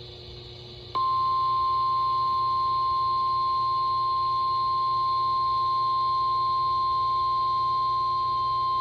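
NOAA Weather Radio warning alarm tone: a single steady 1050 Hz beep that starts about a second in and holds unchanged. It signals that a warning broadcast follows.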